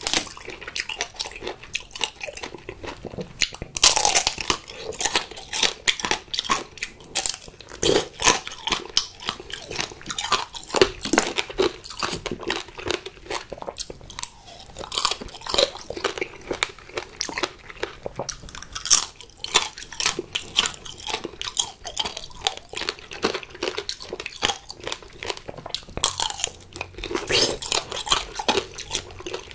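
Crunching and chewing of tanghulu, sugar-glazed fruit on a skewer. The hard candy shell cracks between the teeth in many sharp crunches, with chewing of the fruit inside. The loudest crunches come about four seconds in and again near the end.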